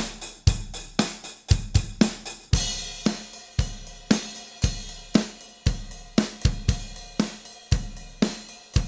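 Drum kit playing a steady beat, strong hits about twice a second. The snare and kick are sample-triggered drum replacements layered with the recorded overheads and hi-hat. A cymbal wash comes in about two and a half seconds in.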